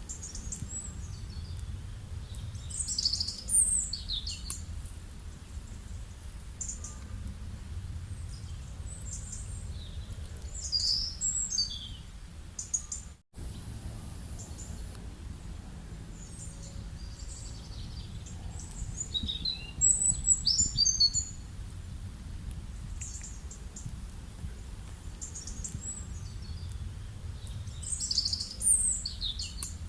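Birds singing in short bursts of high chirping notes, about every eight seconds, over a steady low rumble of outdoor background noise. The sound drops out completely for an instant about a third of the way through.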